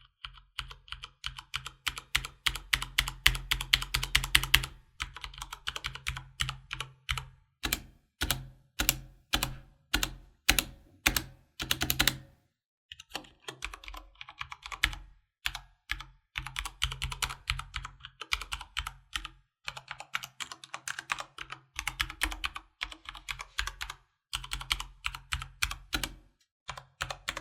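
Typing on a Corsair K100 RGB mechanical keyboard with Cherry MX Speed Silver linear switches. Fast runs of keystrokes are broken by short pauses, with slower single key presses in the middle.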